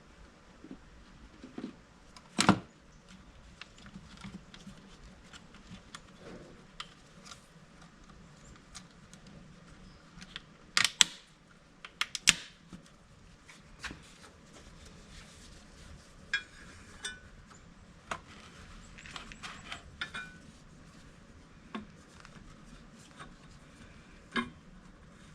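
Scattered clicks, knocks and light rattles of parts being handled and fitted as a mini excavator's air filter housing is put back together. The sharpest knocks come a few seconds in and twice about halfway through.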